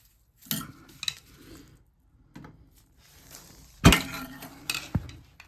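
Metal tools and burner parts clattering and knocking as an oil burner is taken apart by hand, with a sharp knock just under four seconds in as the loudest sound and another about a second later.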